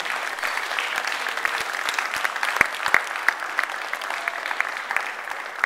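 Audience applauding: many hands clapping together, with a few sharper single claps standing out.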